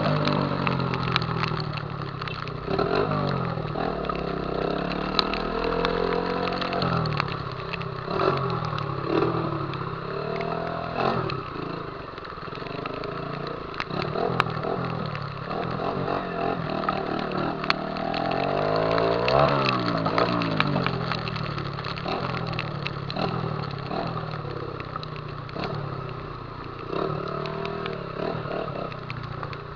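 Honda CG 150 Titan's single-cylinder engine running on the move, its revs climbing and dropping again and again, with scattered short clicks and rattles.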